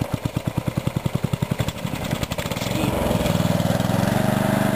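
Small engine of an Ariens rear-engine riding mower running slowly, each firing pulse heard separately, about ten a second. A little over two seconds in it revs up and settles into a steady, faster run.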